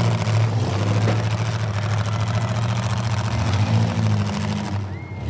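Demolition derby cars' engines running in the arena, a steady low drone that rises and falls in pitch a few times as the cars rev.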